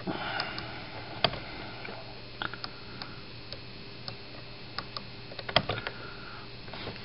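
Rotary encoder knob on a DIY Arduino audio amplifier clicking as it is turned and pressed through the menu: a dozen or so sharp clicks at uneven intervals, over a faint steady hum.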